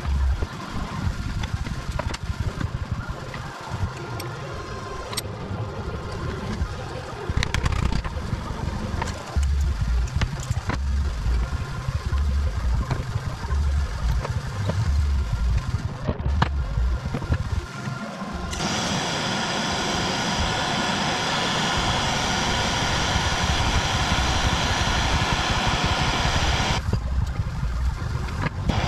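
Knocks and handling clatter, then from about 18 seconds in a power tool running steadily, cleaning a suspension arm; it stops briefly near the end and starts again.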